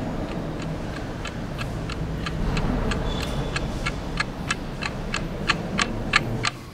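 Clock-like ticking, about three ticks a second and growing louder, over a low steady drone; both cut off suddenly near the end.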